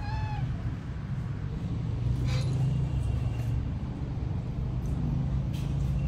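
A domestic cat meows once, a short call that rises and falls in pitch, right at the start. A steady low hum lies underneath, with a few faint clicks.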